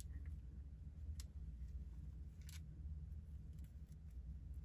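Faint low hum of room noise with a few soft ticks and rustles from a wig being adjusted on the head.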